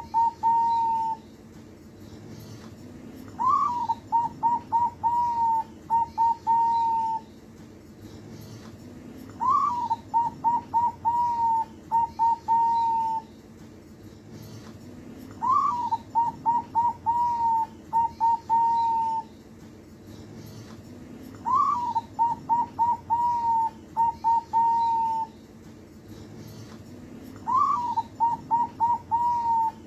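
Zebra dove (perkutut) singing its cooing song. Each phrase opens with a rising note, runs into a quick string of short coos and ends on a couple of longer coos. The phrase repeats about every six seconds, five times over.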